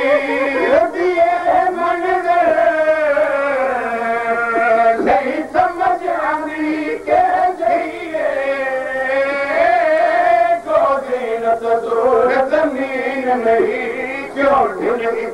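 A man's voice chanting a sung lament through a microphone and loudspeakers: long held notes that waver and bend in pitch, with short breaks between phrases.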